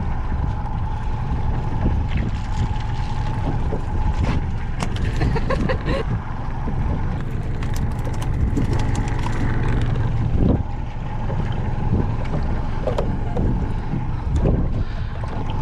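Wind buffeting the microphone and water slapping against a small fiberglass fishing boat, under a faint steady hum. Scattered clicks and knocks come from gear being handled on deck.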